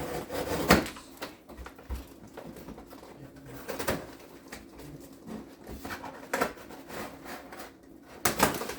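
Cardboard toy box being cut open and handled: several short scraping and rustling noises, one close to the start, others about 4 and 6.5 seconds in and near the end.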